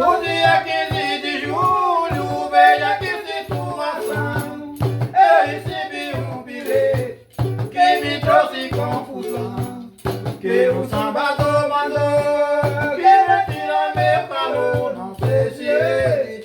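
Samba de roda chula music: plucked strings and shaker-type percussion over a steady low drum beat of about two strokes a second, with a bending melody line on top.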